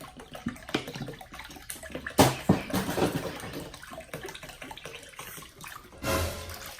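Water being poured from a bottle into a bowl, splashing unevenly, with a few knocks, louder about two seconds in and again near the end.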